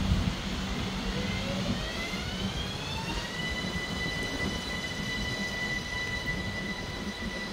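ÖBB Cityjet (Siemens Desiro ML) electric train pulling out and accelerating away: its traction drive whine rises in pitch for about two seconds, then holds a steady high tone over a low rolling rumble.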